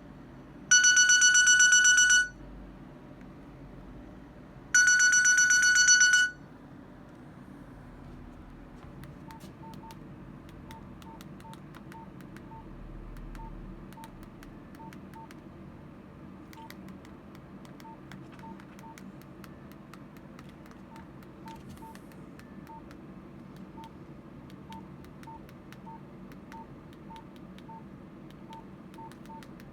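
Nokia 105 (2013) mobile phone sounding two loud, buzzy electronic beeps of about a second and a half each, a few seconds apart. Its keypad is then pressed over and over, with faint clicks and short quiet beeps.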